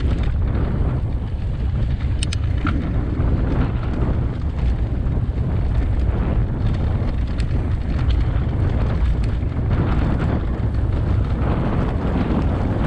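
Wind buffeting the microphone of a camera on a full-suspension mountain bike riding a dirt trail, under a steady rumble of knobbly tyres rolling over dirt and dry leaves. A few sharp clicks and rattles from the bike over bumps.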